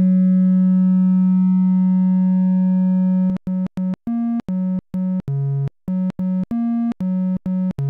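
Behringer 2600 analog synthesizer playing bare triangle and sawtooth oscillator tones: one held note for about three seconds, then a quick staccato run of short notes stepping between a few pitches.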